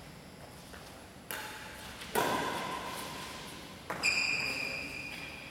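Badminton rackets striking the shuttlecock in a rally: a few sharp pinging hits, the loudest about two seconds in, each ringing on briefly in the large hall.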